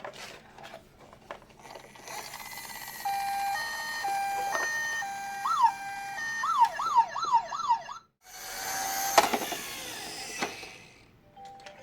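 Toy ambulance's electronic siren over a steady hiss. It starts in an alternating two-tone hi-lo pattern, then gives a few rising sweeps and a fast up-and-down warble. It cuts off suddenly, comes back briefly with a sharp click, and fades out.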